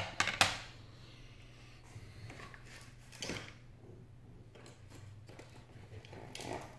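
Sharp clicks and knocks of small hard phone parts being handled and set down on a desk, the loudest just after the start. Fainter handling noises follow around three and six seconds in.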